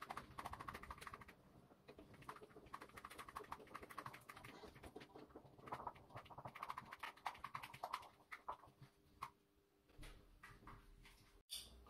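Wooden spoon beating homemade mayonnaise by hand in a bowl as the oil is worked in and it thickens: faint, quick ticking and scraping against the bowl in runs, with a brief pause near the end.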